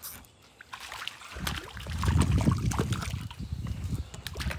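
Water splashing and sloshing as a hooked crappie is played at the surface beside the boat, starting about a second and a half in, with a low rumble and many small knocks.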